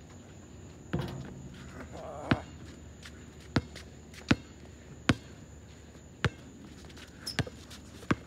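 Basketball bouncing on an outdoor asphalt court, a sharp single bounce every second or so as a player dribbles. About a second in, a ringing metal clank as the shot hits the hoop's rim.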